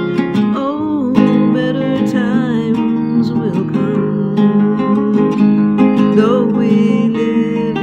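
A woman singing a slow song to her own harp guitar accompaniment, the plucked guitar notes ringing together under her voice.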